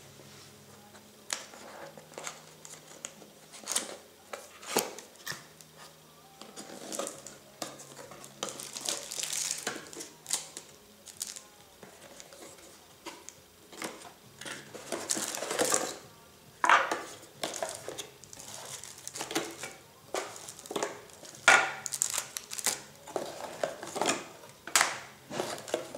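Packaging being handled and opened: cardboard and plastic wrapping rustling and crinkling, with irregular clicks and knocks of small items being lifted out and set down.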